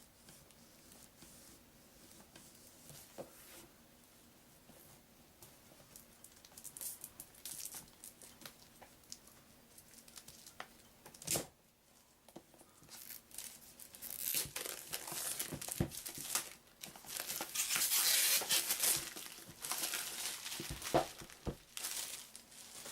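Plastic shrink wrap being torn and peeled off a new board game box, crinkling and crackling, loudest and densest in the second half, with a sharp knock near the middle and a few thumps of the box being handled near the end.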